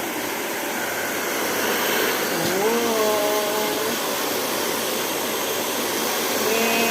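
A PowerTech Turbo Professional hair dryer running with a steady blowing hiss on its first test after being plugged in.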